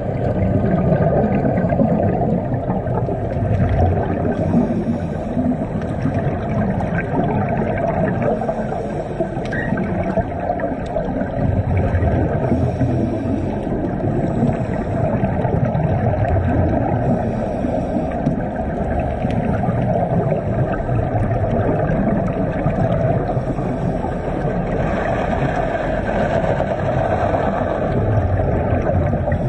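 Muffled underwater rumble and bubbling picked up through a camera's waterproof housing, with scuba divers' exhaled air bubbling from their regulators; it swells and eases every few seconds.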